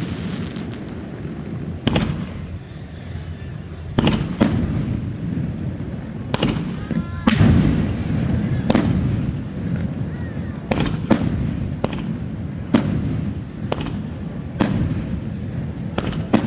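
Fireworks bursting overhead in a New Year display: a string of sharp bangs at irregular intervals, a second or so apart, over a constant low rumble.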